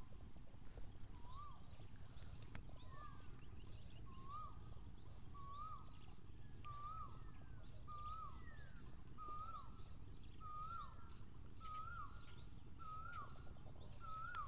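A bird calling a short rising-then-falling whistled note over and over, about once a second, each note creeping slightly higher in pitch, with a second bird giving an occasional falling whistle. Faint outdoor background rumble underneath.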